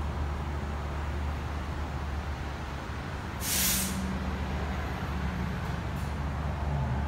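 Steady low workshop hum, with a short burst of hissing air about three and a half seconds in.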